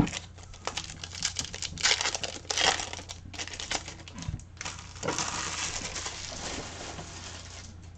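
Crinkling and rustling of a trading-card pack wrapper being handled, with light clicks and slides of cards. It comes in a few short bursts, then a longer stretch of rustling starting about five seconds in.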